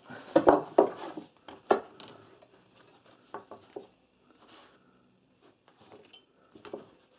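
Metal hand tools clinking and clattering as they are picked through. Loudest in the first two seconds, then lighter scattered clicks.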